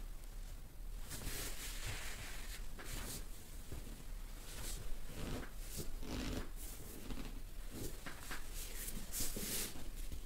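Hands rubbing and pressing over clothing during a dry massage: irregular swishes and rustles of fabric and the mat, several a few seconds apart, over a low steady hum.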